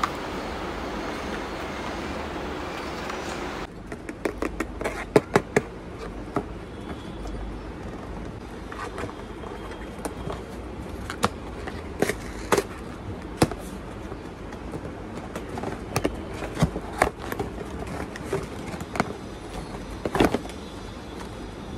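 Paper mailer envelope and packaging being handled and opened, giving irregular sharp crackles and snaps that start about four seconds in, over steady low room noise.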